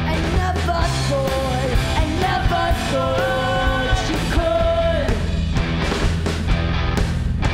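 Rock band playing live: electric guitar, bass guitar and drum kit, with a sung vocal line from about half a second in to about five seconds, then the band playing on without vocals.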